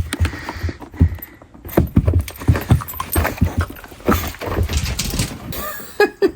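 Footsteps on a hard surface: an irregular run of knocks and low thuds, with a few light clinks.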